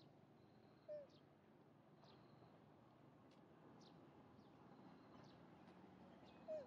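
Faint ambience of short, high, falling chirps, broken twice by a brief falling animal call, about a second in and again near the end.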